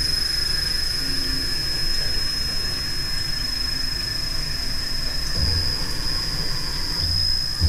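1988 Vulcan 2814 CNC milling machine powered up, a steady hum with a constant high-pitched whine. A few short low pulses come about five seconds in and again near the end, while the controller's knob is being worked.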